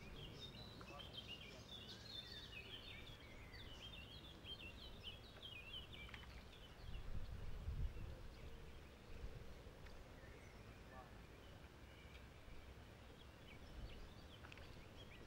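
Small birds chirping in quick runs of short notes, thickest in the first few seconds and again near the end, over quiet outdoor background with a low rumble that swells about seven seconds in.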